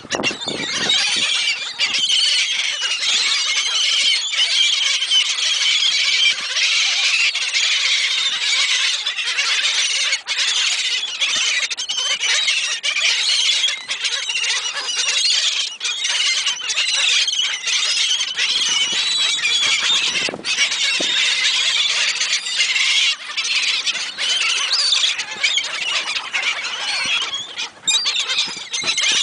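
A flock of gulls crying continuously while they are being fed, many high calls overlapping into one loud, unbroken din.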